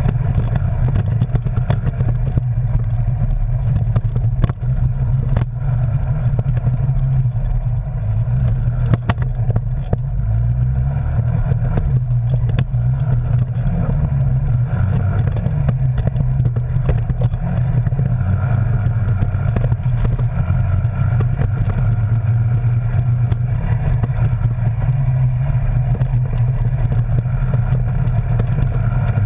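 Arctic Cat Wildcat Sport side-by-side's engine running steadily while driving, its pitch wavering a little with the throttle, with scattered knocks and clatter of the machine jolting over rough, rutted ground.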